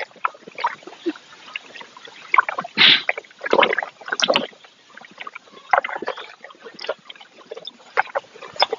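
Cow drinking from a bucket of water mixed with jackfruit, with irregular slurps and splashes, the loudest a little under three seconds in.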